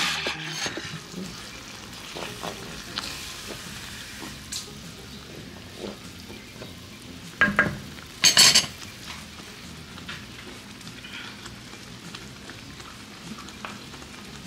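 Stovetop cooking: a steady hiss of a pot of water boiling with spaghetti and meat sauce simmering in a pan. Two short, loud clatters come about halfway through.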